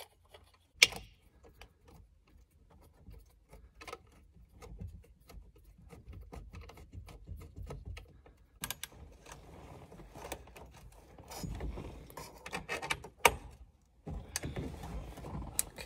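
Handling noise as a tachometer gauge is pushed into place in an instrument cluster pod: scattered clicks and taps with rubbing and wire rustle between them. A sharp click comes about a second in and another near the end.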